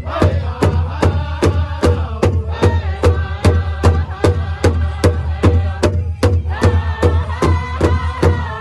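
Powwow drum group singing a Women's Traditional song: several singers strike one large drum in a steady beat of about three strokes a second while they sing together. The voices drop out for a moment about six seconds in while the drum keeps going, then come back in high.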